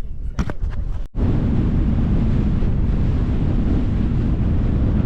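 Strong hilltop wind buffeting the microphone: a loud, steady low rumble that starts abruptly about a second in. Before it come a few brief handling clicks.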